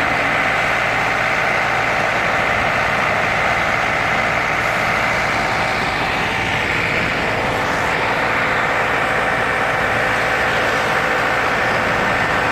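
An engine running steadily, a constant hum over a dense noise that does not change in level.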